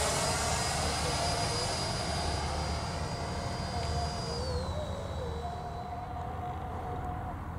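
Electric ducted fan of an 80mm RC jet whining in flight over a rush of air, fading as it moves away. Its high whine steps down in pitch about four and a half seconds in.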